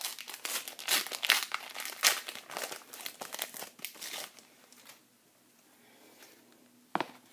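Plastic wrapper of a baseball card pack being torn open and crinkled: a dense run of crackles for about four and a half seconds, then faint rustling and one sharp click near the end.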